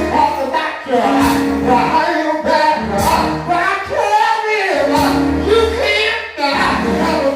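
Church gospel music: voices singing over a live band, with steady bass notes and regular drum hits.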